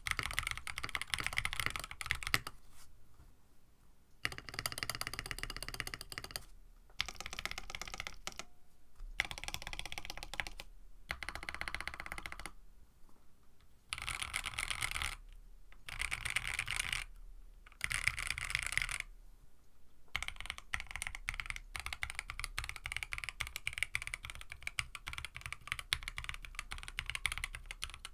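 Typing on a KBD67 Lite mechanical keyboard fitted with EV-00 switches and an FR4 plate: fast runs of key clacks in bursts of a second or few, with short pauses between. The uploader finds these switches sound a little muted in this board.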